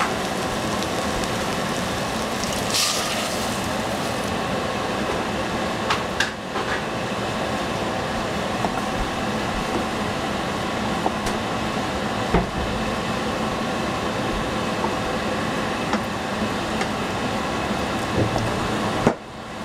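Israeli couscous sizzling steadily in a hot pan over a steady hum, with a few light clicks of a utensil against the pan. The sound drops out abruptly near the end.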